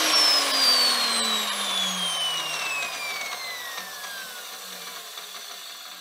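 Milwaukee metal-cutting chop saw motor and wheel winding down after a brief trigger pull, a whine falling steadily in pitch and fading. The repaired trigger switch now shuts the saw off when released.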